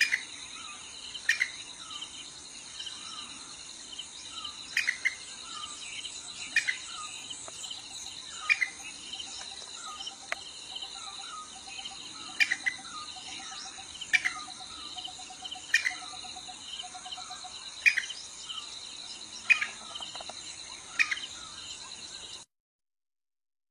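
Tropical forest ambience: a steady, high-pitched insect chorus, with a bird repeating a short, sharp call about every two seconds. A faint, quicker series of low notes runs through the middle. The sound cuts off suddenly near the end.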